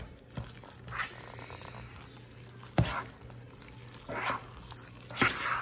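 A spoon stirring a thick, wet chicken, rice and sour cream mixture in a large mixing bowl: a few short squishing strokes, with a sharp knock of the spoon against the bowl about three seconds in.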